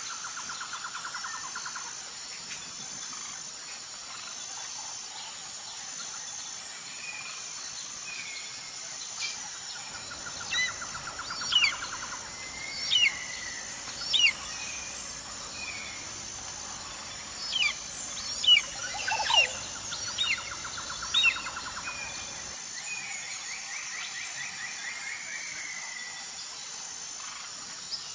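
Wild birds calling: a run of sharp, steeply falling whistles in the middle stretch, over a steady high trill and a lower rattling trill that comes back every several seconds.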